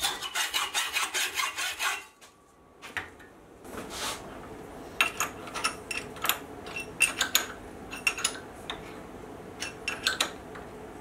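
Hacksaw cutting through a threaded bolt held in a vise, quick back-and-forth strokes at about three a second. It stops about two seconds in, and after a short pause come scattered sharp metallic clicks and taps as an open-ended spanner turns the bolt of a steel clamping plate.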